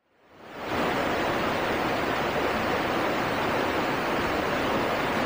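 River water rushing over rocky rapids: a steady, even rush that fades in over the first second.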